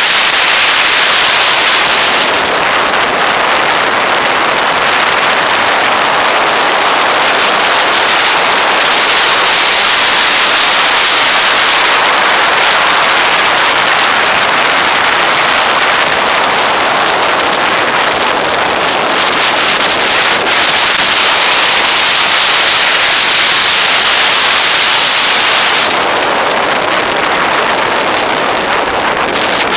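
Steady rush of wind over the microphone of a camera mounted on a motorcycle riding at road speed, loud enough to bury the engine. The hiss eases a little about four seconds before the end.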